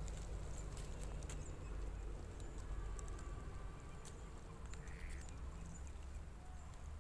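Faint rustling and scattered light clicks of dry plant stalks handled by a hand working at an eel hole, over a low steady rumble.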